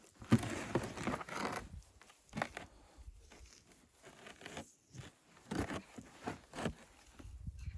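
Irregular rustling and crunching, dense for the first couple of seconds, then scattered single crunches with quiet gaps between them.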